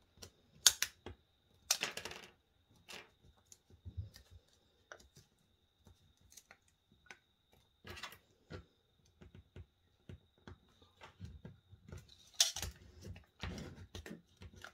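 Thin aluminium sheet cut from a drink can crinkling and clicking as its edges are folded over and pressed flat with a bone folder: irregular sharp crackles with pauses between.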